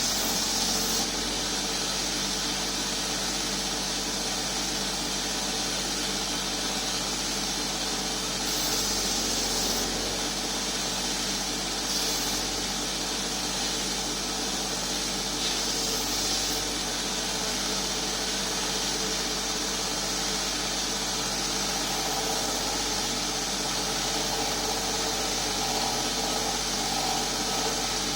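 Powered grinder running steadily while a handle blank is rough-ground freehand against it. A hiss of abrasive on the workpiece swells for a second or two several times over the steady motor hum.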